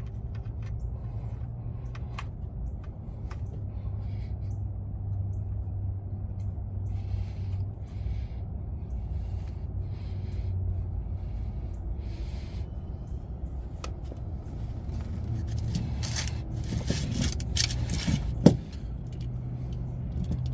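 Steel oil drain plug being threaded back into the oil pan by hand: faint clicks and scrapes of metal, with a sharper click near the end, over a steady low hum.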